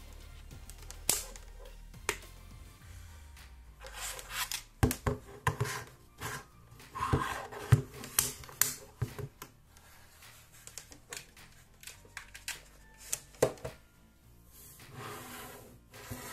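Handling noise from a plastic portable camping fan and its USB charging cable: irregular sharp clicks and knocks of hard plastic with rubbing and scraping as it is turned over and the cable is plugged in.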